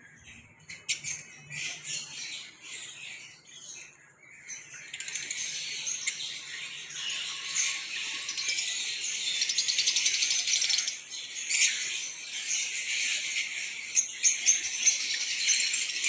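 A flock of lovebirds chattering with shrill, high calls, the chorus thickening and growing louder about five seconds in.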